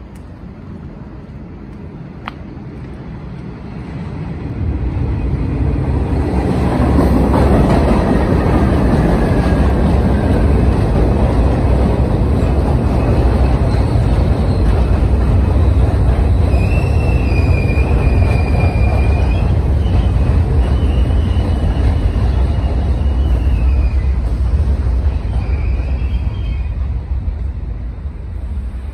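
Q subway train passing close by. Its rumble builds over the first few seconds, holds steady, and eases off near the end. A high wheel squeal comes in over the second half.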